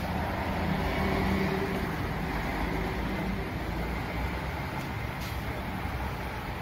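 Road traffic noise: a steady rumble of cars on the road, with an engine hum that is strongest in the first few seconds and then fades.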